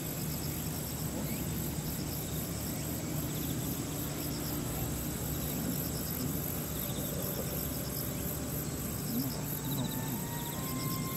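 Insects chirping in short repeated pulses, over a steady low hum and hiss.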